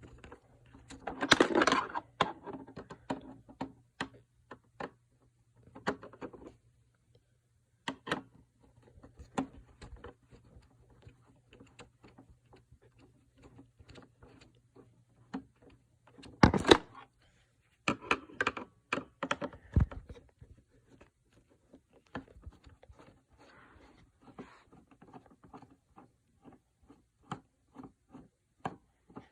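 Clicks, taps and knocks of the plastic housing and parts of an iRobot Roomba i series robot vacuum being handled during a battery swap, irregular throughout, with louder clattering clusters about a second in and again around two-thirds of the way through. A faint low hum runs under the first several seconds.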